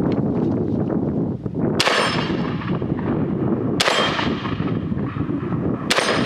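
UTAS XTR-12 semi-automatic 12-gauge shotgun firing three shots about two seconds apart, each with a ringing tail, the action cycling and ejecting a spent shell between shots.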